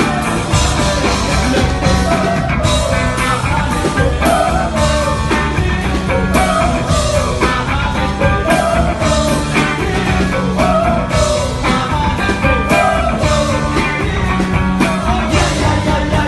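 Rock band playing live, loud: drums and guitars, with a melodic line swooping up and down about every two seconds.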